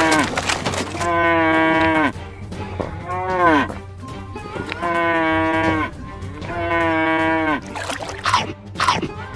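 Cattle mooing over and over, about five moos of roughly a second each, every one sliding down in pitch at its end, with faint background music underneath.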